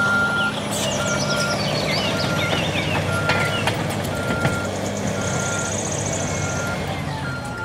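Crawler bulldozer's diesel engine running steadily under load, with a backup alarm beeping about once a second.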